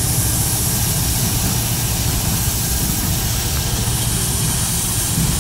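Diesel-electric locomotives, a GE Dash 9-40C leading an EMD SD60E, running light along the track: a steady low diesel engine rumble with an even hiss over it.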